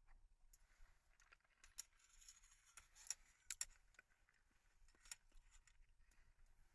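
Faint handling noises: light rustling and scattered small clicks, with two sharper ticks about three and three and a half seconds in.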